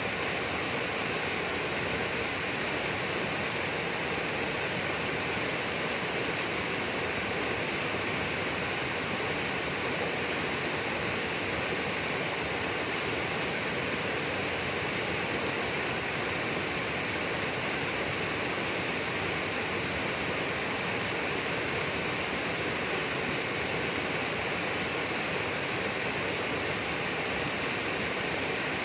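A steady, even rush of flowing water, like a stream or small waterfall, with no breaks or separate events.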